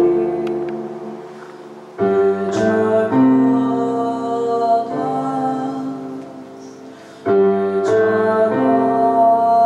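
Slow keyboard music of held chords. A new chord is struck about two seconds in and again about seven seconds in, each fading away slowly.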